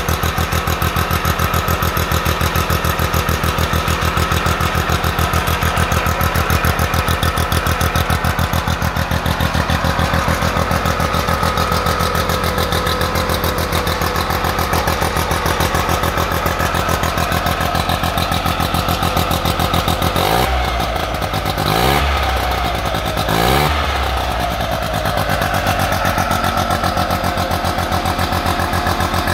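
Sachs KM914A single-rotor Wankel engine running steadily at idle. It is briefly revved up and back down twice about twenty seconds in, then settles back to a steady idle.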